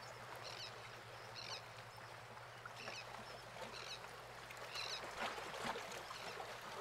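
Faint marina ambience: a steady low hum under short, high chirping calls that come about once a second, with a few soft knocks about five seconds in.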